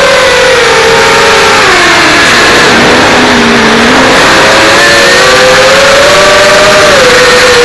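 Brushless motors and propellers of a 5-inch FPV quadcopter whining at several close pitches over a loud rushing hiss. The pitch drops as the throttle eases off about two seconds in, then climbs back up.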